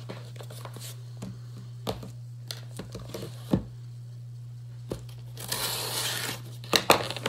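Small scissors snipping into a paper package, with scattered clicks and handling noises. About five and a half seconds in comes a stretch of paper packaging tearing and crinkling, then a few sharp clicks.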